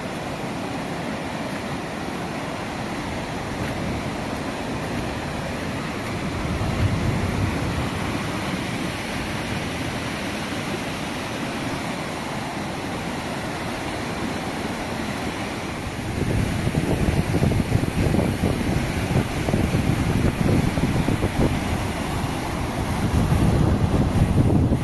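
Muddy floodwater rushing down a rocky gully, a steady rushing noise. Wind buffets the microphone, louder and gustier from about two-thirds of the way through.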